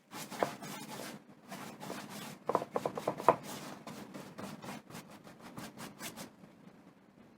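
Scattered light rustles and clicks of hands handling a wooden tray and tools right after sanding stops, with a quick run of small knocks about two and a half to three and a half seconds in. After about six seconds only faint room noise remains.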